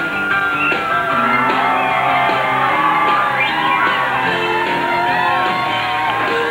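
Rock music with a shouted vocal.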